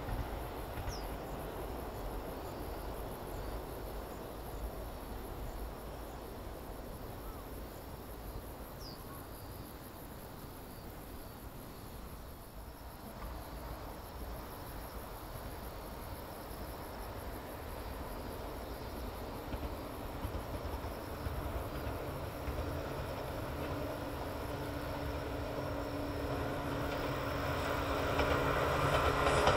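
Insects chirping steadily over a low outdoor rumble. Over the last few seconds a train approaches and grows louder.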